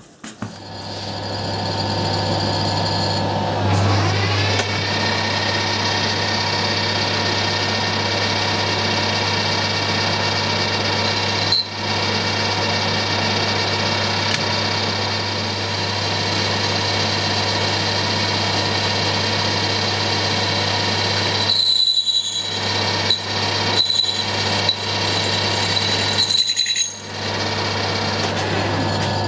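Metal lathe running, spinning a steel motorcycle flywheel rotor that is being bored out to take a press-fit magnet ring. The lathe hums steadily with a rising whine about four seconds in, and a high whine with several short breaks between about 22 and 27 seconds.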